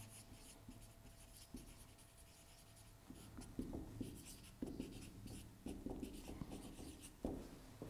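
Marker pen writing on a whiteboard: faint, short separate strokes of the felt tip as a word is written, coming thicker in the second half.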